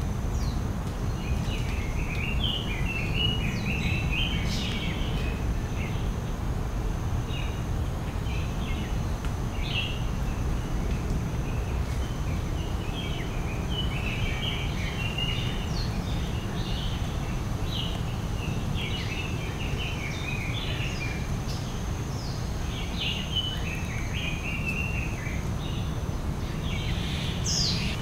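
Outdoor ambience: birds chirping and calling in frequent short bursts over a steady low rumble, with a faint thin high tone held throughout.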